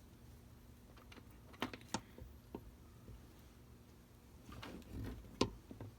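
Light, scattered clicks and taps of steel linesman pliers being handled and knocked together: a few in the first couple of seconds, then a brief rustle and a cluster near the end with one sharper click.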